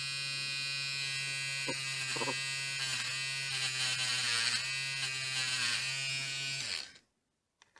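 Small handheld electric rotary tool running with a steady buzzing hum, its brush working over a rusted lock part, then switching off about seven seconds in.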